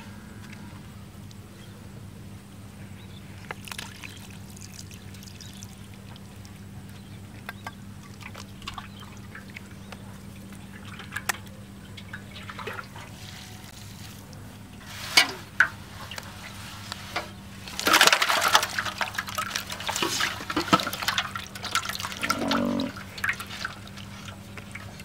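Water splashing and sloshing as live catfish are tipped into a basin of water, loudest in the second half. A few sharp knocks come before it, and a faint steady hum runs underneath.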